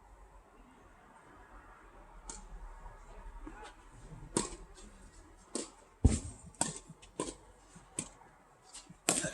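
Tennis ball being struck by rackets and bouncing on the court in a rally: a series of sharp, irregular knocks, sparse at first and coming every half second or so in the second half.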